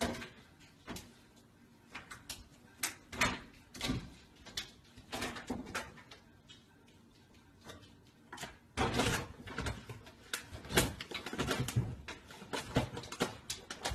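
A cat clambering on an over-the-range microwave and into an open wooden kitchen cabinet: irregular knocks and bumps against the cabinet door and the microwave. The knocks come thicker and louder from about nine seconds in.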